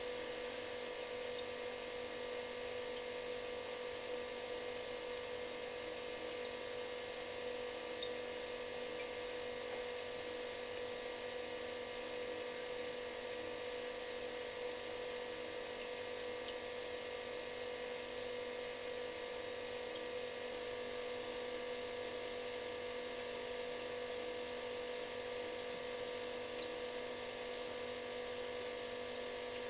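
Refrigerator running with a steady electrical buzz: a hum of several fixed tones, the strongest mid-pitched, over an even hiss, with a few faint ticks.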